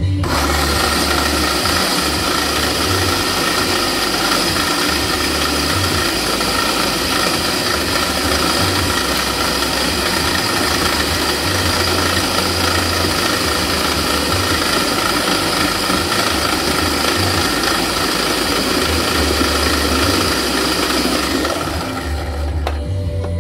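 Electric food processor running steadily while it chops and purees fresh pineapple. The motor stops abruptly near the end.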